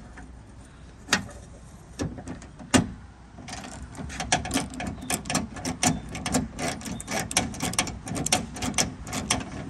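Ratchet wrench on a long extension clicking as it loosens a bolt inside a pickup truck door through an access hole: a few single clicks, then quick steady ratcheting, about three or four clicks a second, from about three and a half seconds in.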